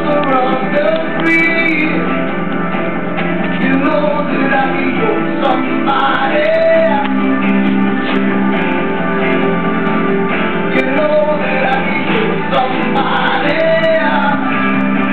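Background music: a song with a voice singing over instruments, steady throughout.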